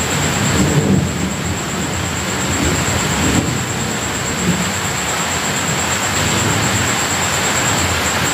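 Steady heavy rain with thunder rumbling low in the background, swelling in the first second or so and again midway. A thin, steady high-pitched tone runs under it.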